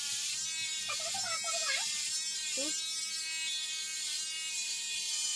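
Electric shaver buzzing steadily as it is run over a bald scalp, a steady motor hum with no change in pitch.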